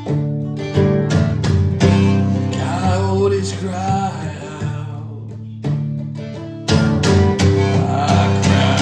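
Guitar chords strummed in an instrumental passage of a song. There is a quieter stretch a little past halfway before the strumming comes back strongly.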